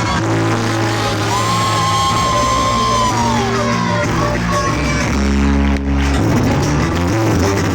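Loud music with a steady bass line and a long held high note that slides downward about three and a half seconds in, with crowd noise underneath.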